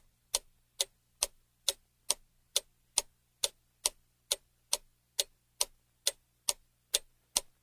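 Clock-ticking sound effect: even, sharp ticks about two and a half a second, like a timer counting down.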